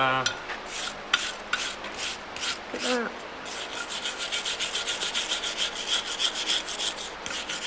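Hand wire brush scrubbing a brass-brazed steel key held in tongs on an anvil, scouring off the borax flux scale to expose the brass seam. Back-and-forth scratching strokes, a few a second at first, turning faster and denser about halfway through.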